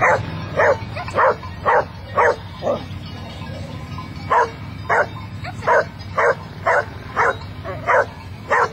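A dog barking repeatedly in short, sharp barks, about two a second, with a pause of about a second and a half near the middle.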